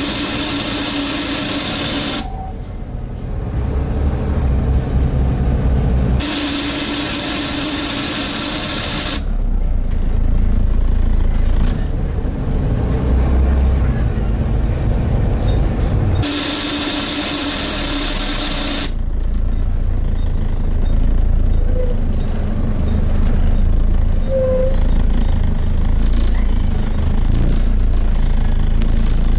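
Very loud suction noise on a Volvo B7TL / Wright Eclipse Gemini double-decker bus, heard from inside: three loud hissing bursts of two to three seconds each, at the start, about six seconds in and about sixteen seconds in, over the low rumble of the running engine. The uploader puts the noise down to bad maintenance.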